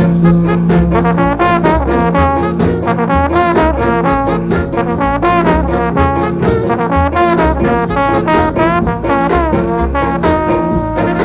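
Early-1960s Jamaican ska instrumental played from a 7-inch vinyl single: a brass section led by trombone runs a quick melodic line with bends over a pulsing bass. About ten seconds in the horns settle onto held chords.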